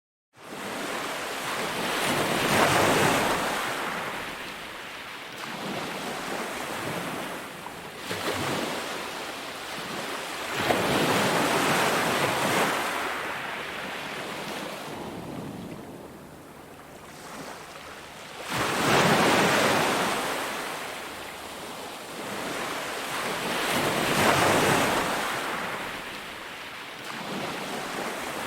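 Sea waves breaking and washing up on a beach: a steady rush of surf that swells and ebbs, with a louder surge every five to eight seconds. The sound starts abruptly at the beginning.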